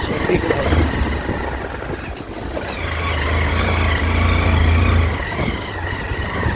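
Motorcycle engine running as the bike rides over a rough dirt track. Its low drone gets louder and steadier about three seconds in, with a few light clicks.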